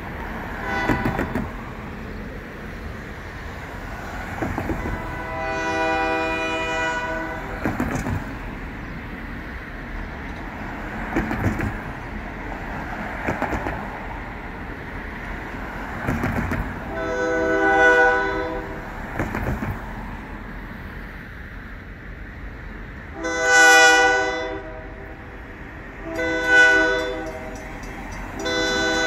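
Diesel locomotive's multi-chime air horn on an approaching freight train, sounding a long blast and then the long-long-short-long grade-crossing signal, the later blasts louder as the train nears. Low rumble of the approaching train and passing road traffic beneath.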